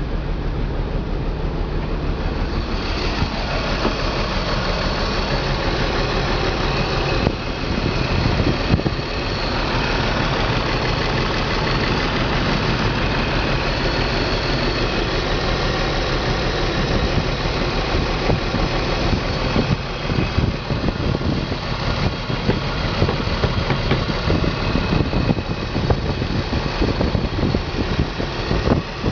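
BMW M54 2.5-litre straight-six idling, running unevenly, with the loudness growing more jerky in the second half. This is the rough running of a cold-start misfire, which the owner's fault codes place on cylinders 3 and 5.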